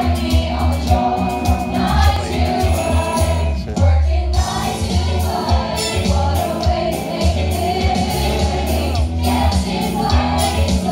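Live stage musical number: the cast singing together over a band, with a steady pulsing bass beat, heard from the audience seats.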